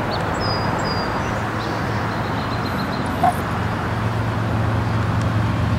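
Steady rushing outdoor background noise with a low motor hum that grows louder in the second half. A short high chirp sounds about half a second in.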